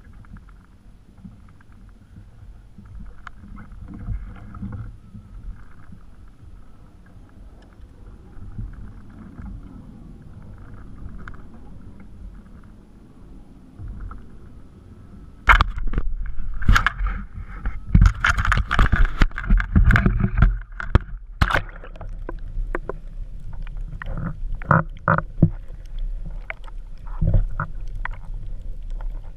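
Small waves lap at a plastic kayak hull while a fish is fought on rod and reel. About halfway through, a burst of loud knocks, bumps and splashing starts as the camera goes into the water, followed by a muffled underwater rumble with scattered knocks.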